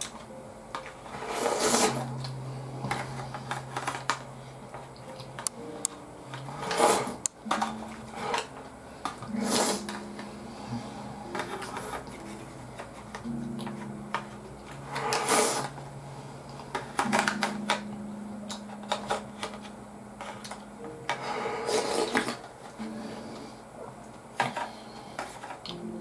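Udon noodles being slurped from an aluminium pot and chewed: about five loud slurps spread through, with smaller mouth and chopstick clicks and low held hums between.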